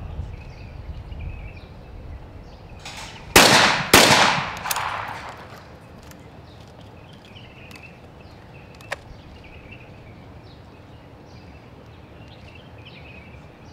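Two shotgun shots about half a second apart, a skeet double, each trailing off in a long echo. A single short sharp click follows some five seconds later.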